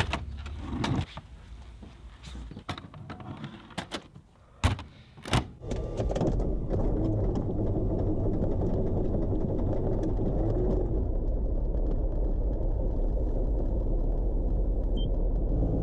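Scattered clicks and knocks, with two sharp loud knocks about five seconds in. Then the Beechcraft Bonanza's piston engine runs steadily at a low, even note.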